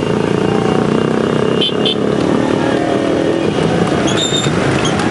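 Many motorcycles and scooters running together in a crowded group ride, a dense steady engine din. Short high-pitched beeps sound twice, near two seconds in and again around four seconds.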